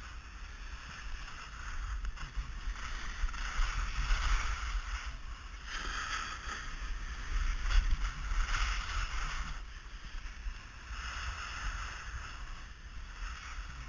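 Skis scraping and hissing over packed snow, swelling with each turn, over a constant low rumble of wind on the action camera's microphone.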